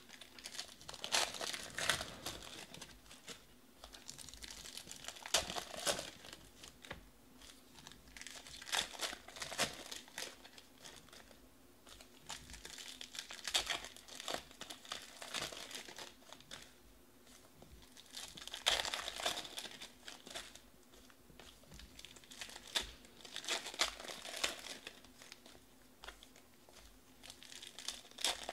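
Foil wrappers of 2019 Panini Stars & Stripes baseball card packs crinkling and tearing as they are ripped open by hand, in bursts every few seconds.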